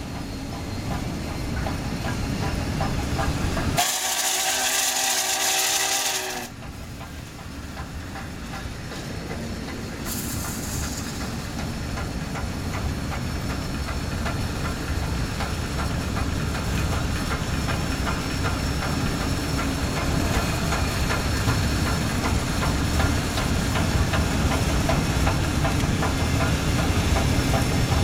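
Union Pacific 844, a 4-8-4 Northern steam locomotive, and its train rolling past with a steady rumble of wheels on rail. About four seconds in, its chime steam whistle blows once for about two and a half seconds with a strong hiss, and a short hiss of steam follows about ten seconds in.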